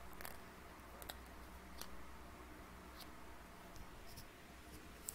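Faint room tone with a low steady hum from a faulty microphone, and a few faint scattered clicks.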